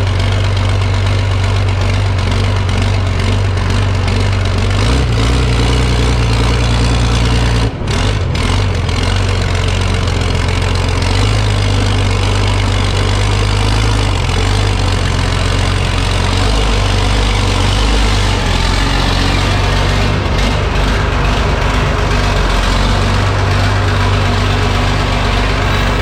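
Large engine running loud and steady, with a brief dropout about eight seconds in.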